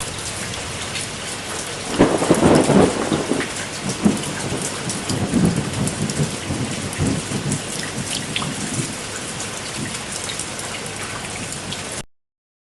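Heavy rain falling steadily in a dense hiss of drops. About two seconds in comes a sudden loud low rumble, followed by a few weaker rumbles. The sound cuts off abruptly shortly before the end.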